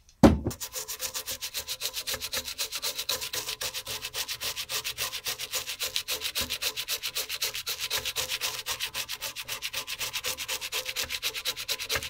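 Toothbrush bristles scrubbing the wet, foam-covered solder side of an amplifier circuit board in quick back-and-forth strokes, several a second, after a sharp knock as the brush first meets the board; the scrubbing stops suddenly near the end.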